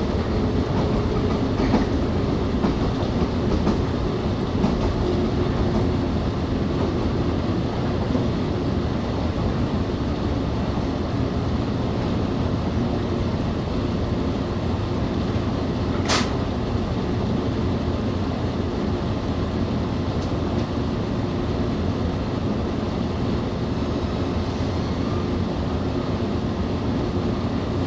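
A passenger train running into a station, heard from inside the car: a steady rumble of wheels on rail with a steady hum, as the train slows almost to a stop. There is a single sharp click about halfway through.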